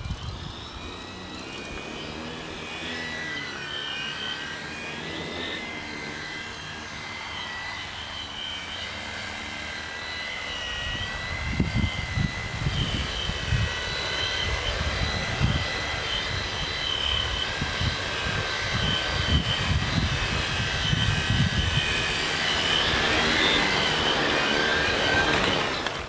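Tricopter's three electric motors and propellers whining in flight, several tones wandering up and down in pitch as the throttle is worked. Gusty low rumbles come through the middle, the whine grows louder as the craft comes in close, and it cuts off just before the end as it lands.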